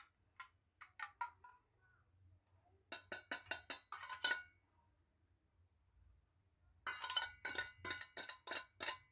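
A metal utensil clinking quickly against a bowl in three short runs of strokes, about six a second, as beaten egg is stirred and tipped into an oiled cup for steaming.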